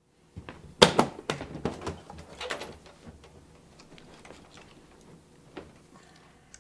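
Aluminium equipment case being opened: a quick run of sharp clicks and knocks about a second in as the latches snap open and the lid lifts, then fainter knocks and rustles as a film camera and lens are handled and lifted out of the foam inserts.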